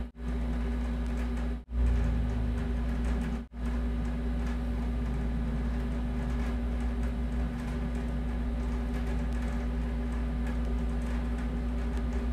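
A steady machine-like hum made of several constant tones over a low rumble, with no speech. It cuts out for a split second three times in the first few seconds.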